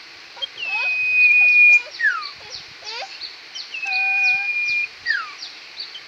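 Caged common iora singing: twice, a long level whistle followed by a short whistle that falls in pitch, over a scatter of quick high chirps.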